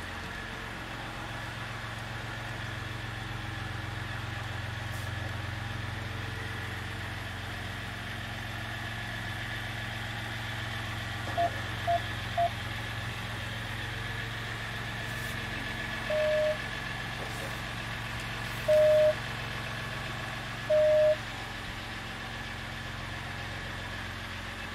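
A Ram's 3.0-litre V6 turbodiesel running at low speed, heard from inside the cab as the truck creeps along. About halfway through, the dash chimes three quick beeps, then three longer beeps a couple of seconds apart.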